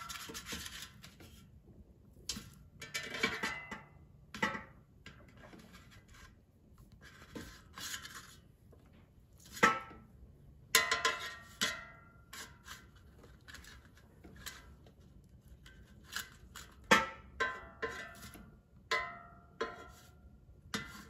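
Spatula and tongs scraping and knocking against a non-stick metal air fryer basket as frozen cod fillets are turned over: irregular clinks and scrapes, some with a brief metallic ring.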